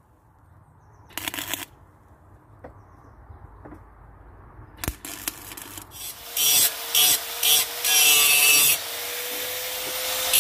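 Electric welder arc crackling on steel tube. There is one short burst about a second in, then a few quiet clicks, then from about six seconds three short tack bursts followed by a longer continuous weld run.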